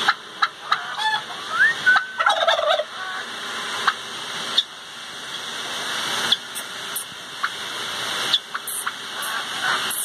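Domestic turkey tom gobbling: a rapid warbling call about two seconds in, among short squeaky calls and sharp clicks in the first three seconds. After that a steady hiss with a few sharp clicks.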